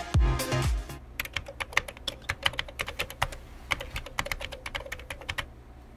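A dance-music beat cuts off about a second in, followed by rapid, uneven computer-keyboard typing clicks that stop shortly before the end.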